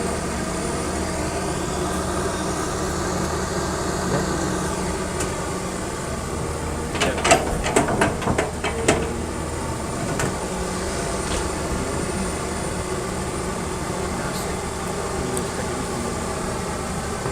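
Excavator diesel engine running steadily, with a burst of clanks and knocks about seven to nine seconds in.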